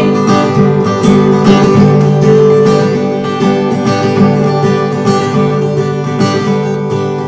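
Acoustic guitar strummed in a steady rhythm, with no singing over it.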